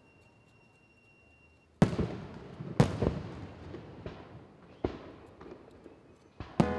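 Aerial fireworks shells bursting overhead: a quiet moment, then about half a dozen sharp booms from about two seconds in, each trailing off in echo and crackle.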